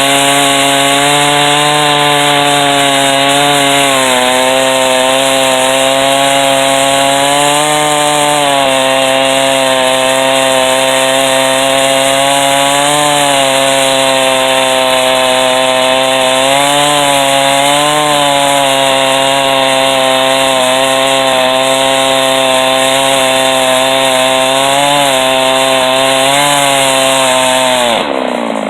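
Chainsaw on a chainsaw mill running at full throttle while ripping lengthwise through a white-oak log. The engine pitch dips and recovers slightly as the load varies. Near the end the throttle is released and the engine winds down toward idle.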